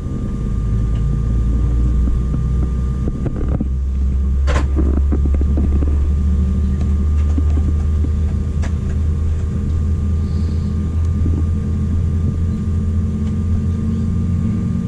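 Cabin noise of a CRJ-700 regional jet during pushback: a steady low rumble with a droning hum and a thin steady whine, the rumble growing fuller about three and a half seconds in. A single sharp click about four and a half seconds in.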